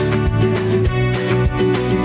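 Background music: an upbeat track with plucked guitar over a steady beat.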